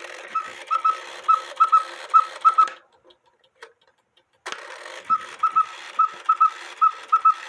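Cuckoo-quail clock's quail bellows chirping: short whistled pips at one pitch, in repeated groups of one then two quick pips, over a light mechanical hiss. The chirping breaks off about three seconds in and starts again a second and a half later.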